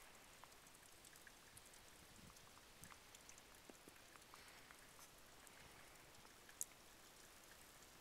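Near silence: a faint hiss with scattered small ticks, and one sharper tick about six and a half seconds in.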